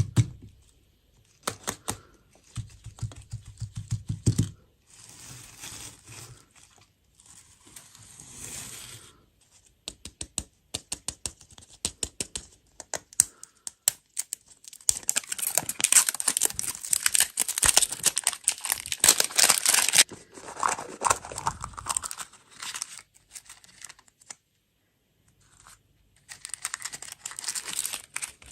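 Plastic wrapping torn and crinkled, with many sharp clicks and taps. The crinkling is densest about halfway through, stops briefly, then starts again near the end.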